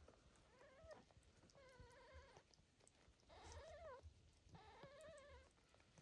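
Newborn kittens mewing faintly: four short, high, wavering cries, a second or so apart.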